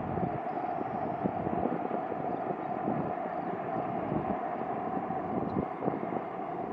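Electric REM light-metro train running along an elevated guideway, heard as a steady distant roar.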